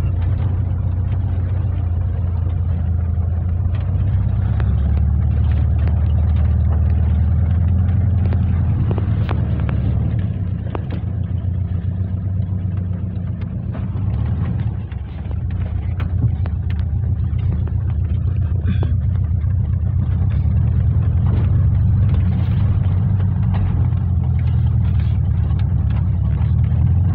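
Volkswagen Kombi van driving, heard from inside the cab: a steady low engine and road drone with small knocks and rattles. It eases off for a few seconds about halfway, then picks up again.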